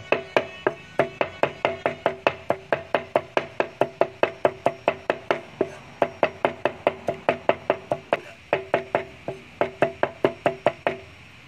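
Cleaver mincing garlic on a thick round wooden chopping board: quick, even knocks about four a second, each with a short ringing tone from the board. The chopping pauses briefly twice and stops shortly before the end.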